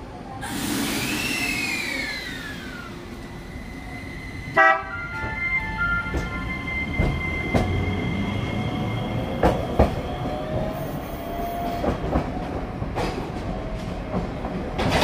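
Iyotetsu VVVF inverter-controlled tram passing on street track: a falling electric whine in the first few seconds, a single sharp ringing strike about four and a half seconds in, then a slowly rising inverter whine as it moves off, with wheel clacks and knocks over the rail joints.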